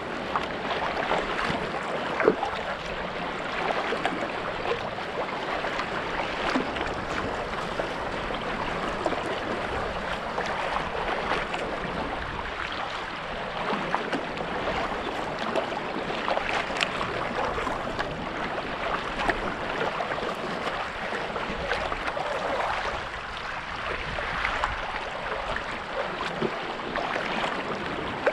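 Steady splashing and trickling of water as a sea kayak is paddled under way: the paddle blades dip and pull through the sea and water washes along the hull.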